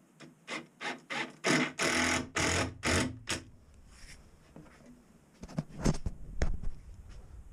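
A run of about nine short scraping strokes, growing longer as they go, like something rubbed back and forth against plywood, followed a couple of seconds later by a few knocks.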